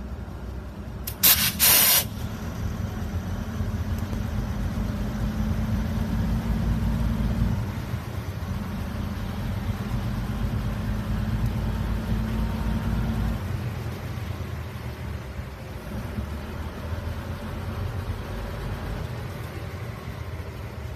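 Locomotive running, a steady low engine sound whose note shifts twice, about seven and thirteen seconds in. About a second in comes a short, loud double burst of air hiss.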